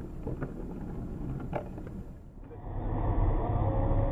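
Road noise of a moving car heard from inside the cabin, with a few faint clicks. About two and a half seconds in, it cuts to another recording with a louder, steady rumble of tyres and engine.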